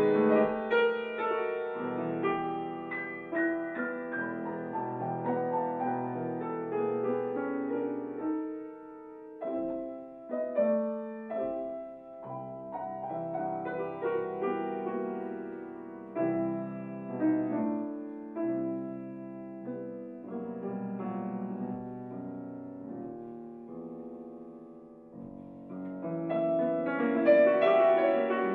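Grand piano played solo, a classical piece: the playing starts loud, eases into a softer, sparser passage, grows quietest a few seconds before the end, then swells loud again.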